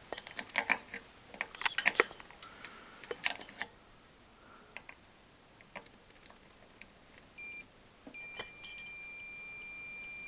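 Clicks and taps of the probes and circuit board being handled, then a handheld multimeter's continuity buzzer gives a short beep and about a second later starts a steady high beep, sounding for the 47-ohm short across the stabilizer's legs in the welding inverter.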